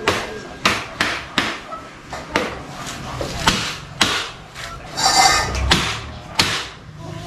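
Mallet knocking on an aluminium sliding-window panel frame as the glass is fitted into it: a quick run of sharp knocks, two or three a second, then a brief scrape about five seconds in and two more knocks.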